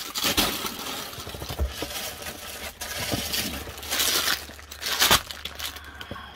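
Clear plastic garment bag crinkling and rustling as a packaged shirt is handled, with louder crinkles about four and five seconds in.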